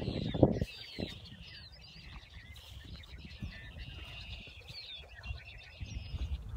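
A flock of birds chattering: many overlapping high calls with short rising and falling notes, over a low rumble that is louder in the first half second.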